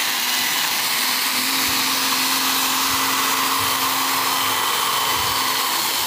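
Handheld electric angle grinder fitted with a sanding disc, running steadily with a high whine and a sanding hiss as it is worked over the wood of a cabinet.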